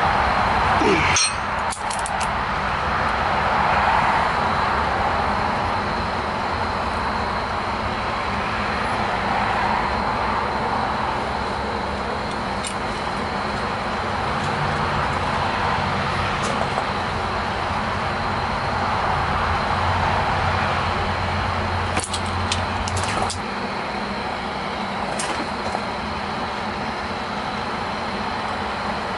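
A small forge running with a steady rushing noise that swells and eases slowly, while a heated steel rod is twisted in a bench vise with locking pliers: a few sharp metal clicks near the start and a cluster of them about two-thirds through.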